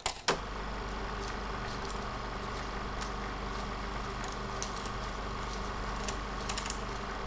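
Electric garage door opener starting with a click and a knock, then its motor running with a steady hum while it drives the door, with a few light ticks from the mechanism.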